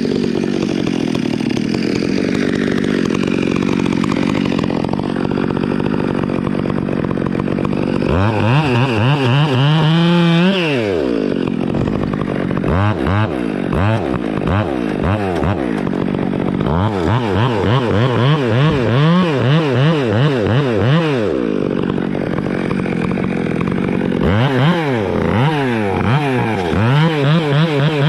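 Chainsaw engine running steadily. About eight seconds in it starts being revved in quick pulses, its pitch rising and falling several times a second, in three or four spells with short breaks between them.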